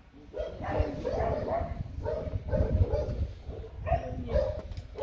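Hmong bobtail puppies yapping and whining in several short bouts as they play together.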